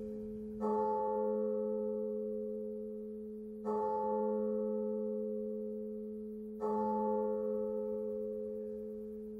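A deep bell struck slowly three times, about three seconds apart, each stroke ringing out and fading away over a steady low hum.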